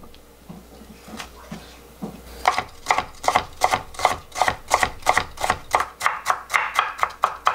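Kitchen knife chopping raw sweet potato on a wooden cutting board: a few soft cuts at first, then from about two and a half seconds in a quick, even run of knocks on the board, about four a second, as it is finely diced.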